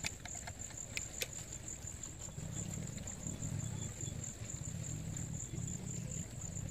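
A steady, high-pitched, unbroken insect trill, such as crickets make at night. A low rumble grows louder about two seconds in, and a few sharp clicks come in the first second or so.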